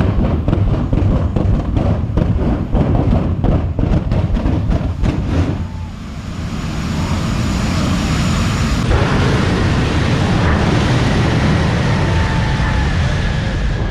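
A loud car engine held at high revs, running rough with rapid pulses. About six seconds in it gives way to a steady rushing roar.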